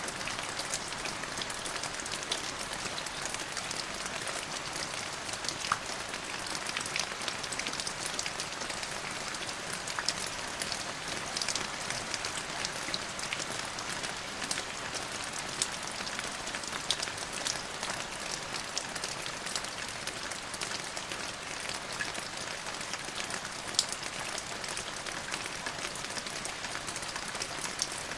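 Steady rain falling, a constant hiss with many separate drops ticking on a surface.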